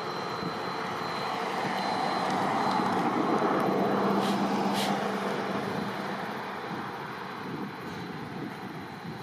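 Double-headed narrow-gauge steam train going past: a steady roar that swells to its loudest three or four seconds in, then fades as it moves away, with two short sharp ticks near the peak.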